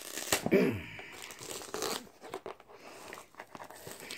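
Plastic wrapping on a small boxed diamond painting kit crinkling as it is handled and turned, in many irregular crackles. A brief vocal sound about half a second in.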